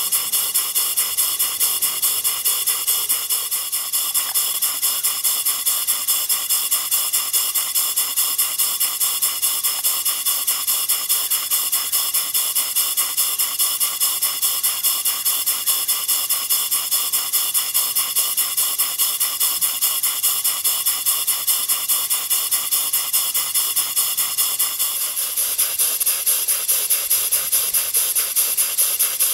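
Antique horizontal model steam engine, circa late 1800s to early 1900s, running on compressed air: a steady hiss with rapid, even exhaust puffs, about three or four a second. The hiss gets louder about 25 seconds in.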